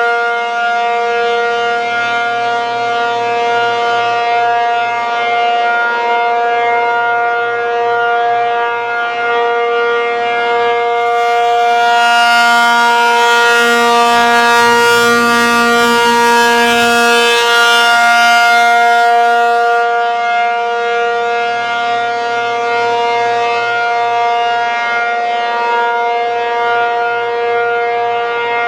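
American Signal T-135AC outdoor warning siren sounding its full-alert signal: one held, unbroken tone that swells and fades as the rotating head sweeps past. A rushing hiss rides over it for several seconds near the middle.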